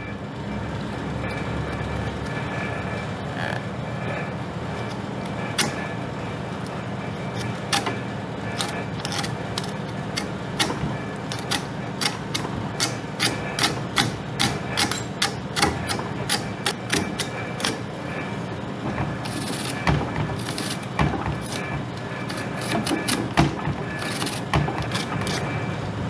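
A hand fin comb raked through the bent fins of a reach-in freezer's condenser coil: a run of sharp, irregular ticks that starts about five seconds in and comes thick and fast from about eight seconds. Under it a steady low hum, the freezer's condensing unit running.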